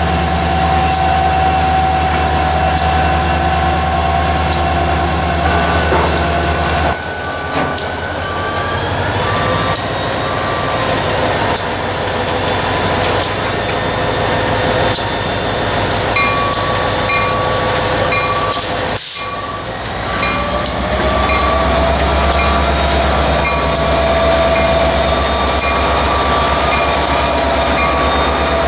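Slow-moving CSX diesel locomotive and road slug of a work train passing close by: a steady diesel engine drone, thin high squeals from steel wheels on the rail, and faint clicks as the wheels cross rail joints. The squeal tones rise in pitch twice along the way.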